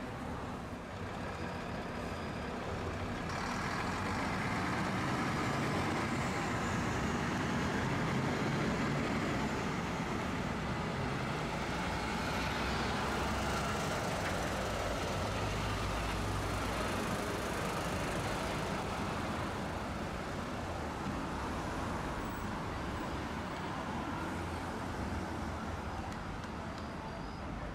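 Busy street traffic with a MAN heavy truck driving past; its diesel rumble is loudest in the middle and eases off as it moves away.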